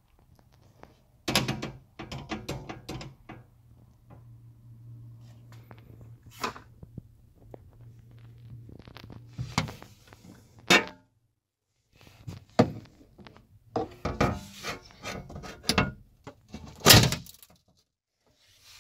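Knocks, clicks and thunks of hands working plastic and metal parts inside a car door with its trim panel off, loudest about a second in and again near the end, over a low steady hum in the first half.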